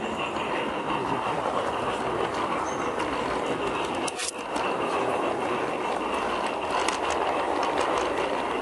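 G-scale garden-railway train rolling along the track, heard from a car in the train: a steady rumble of wheels on rail with a thin, steady whine above it and a sharper click about four seconds in.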